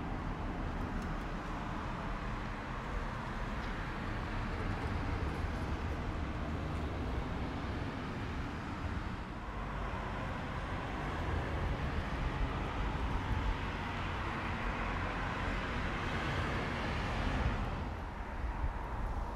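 Outdoor road traffic: a steady noise of vehicles going by, one swelling louder and then dropping away sharply near the end.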